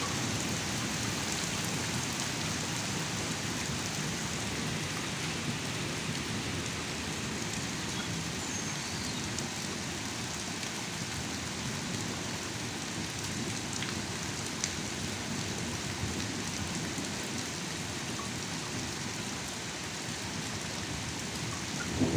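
Heavy downpour: steady rain pouring and splashing on the ground, with an occasional sharper drop.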